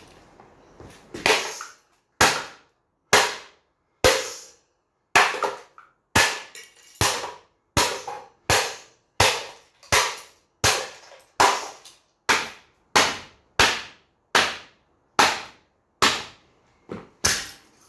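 A cheap plastic Hoover desk fan being smashed with repeated hard blows: about twenty sharp cracking impacts, each with a short ring, coming every second or so at first and faster later on.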